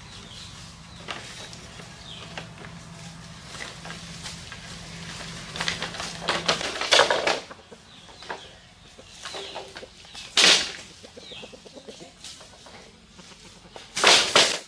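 Cut bamboo poles being handled on a pile in dry leaf litter, rustling and scraping in short bursts, loudest about halfway through, about two-thirds through and just before the end.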